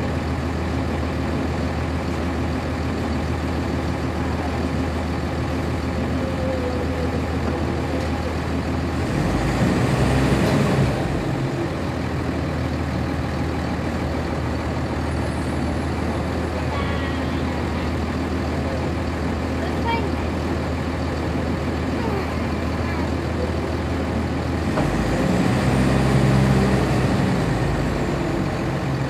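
Cummins ISC diesel engine of a 1999 NovaBus RTS transit bus heard from inside the cabin, running with a steady low drone. It grows louder for a couple of seconds twice, about ten seconds in and again near the end.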